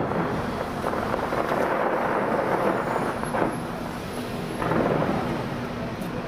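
Distant fireworks display booming in a continuous rolling rumble, like thunder, with louder swells about three and a half and almost five seconds in.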